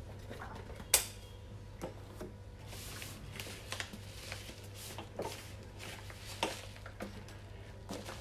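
Objects being handled on a kitchen counter: a sharp knock about a second in, then scattered light clicks and taps, over a faint steady low hum.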